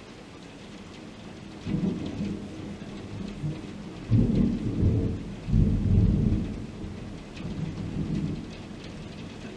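A long roll of thunder over steady heavy rain. The rumble builds from under two seconds in, is loudest in the middle, and fades away near the end.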